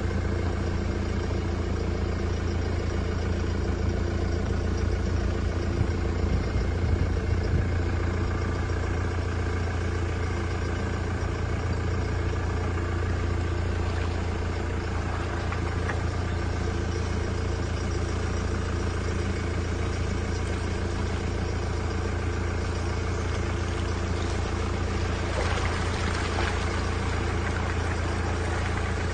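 An engine running steadily at constant speed, a low even hum with no change in pitch.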